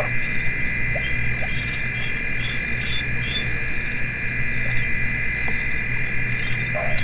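Waterhole chorus of frogs and insects: a steady high trilling, with short chirping calls repeating over it and a steady low hum beneath.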